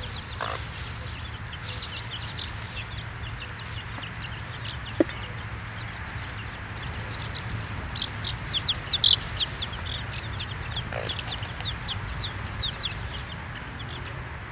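Baby chicks peeping: many short, high, downward-sliding peeps, busiest about eight to nine seconds in, with a couple of lower clucks and a single sharp click about five seconds in.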